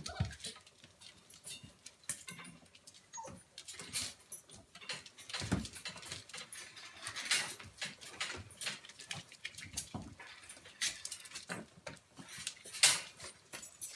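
An animal moving about, making irregular small clicks, taps and pattering, with a low thump about five seconds in and a sharper knock near the end.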